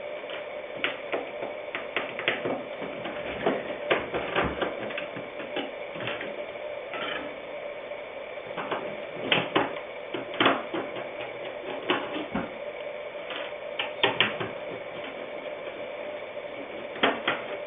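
Hand disassembly of a touchscreen computer: a screwdriver working screws and the screen panel being handled and lifted out of its wooden frame, giving irregular clicks, ticks and knocks. A steady hum runs underneath.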